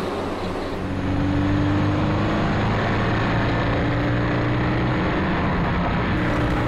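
Subaru BRZ's flat-four engine running under load, with a steady pitch that gets louder about a second in.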